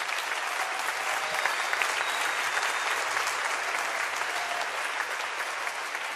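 Audience applauding steadily in a large hall, the clapping tapering off slightly near the end.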